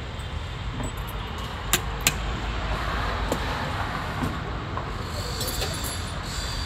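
Metal parts and loose bolts of a Mahindra Bolero alternator clinking against the workbench as it is taken apart: two sharp clinks about two seconds in, a lighter one a little later, and a short run of small clinks near the end, over a steady low rumble.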